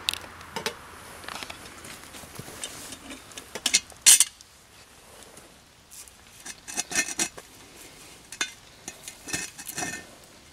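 Metal clinks, knocks and scrapes of a cast-iron Dutch oven and its lid being handled with a metal hook, in scattered clusters with the loudest clank about four seconds in.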